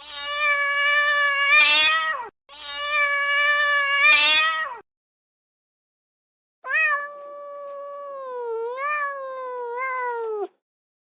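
Domestic cat meowing: three long, drawn-out meows, the third the longest, wavering in pitch and falling away at the end.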